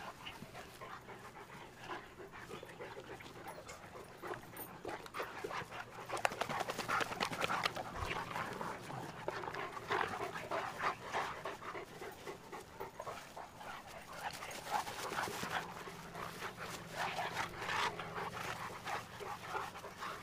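Two Cane Corso dogs play-fighting, panting hard, with busy, irregular noises of their wrestling that pick up about six seconds in.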